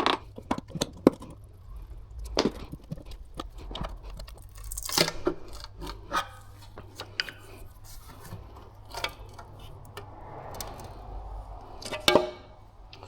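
Metal clinks, knocks and scraping of hand tools prying the oil sump off an engine, with sealant tearing loose, in a string of irregular sharp taps and a few longer scrapes.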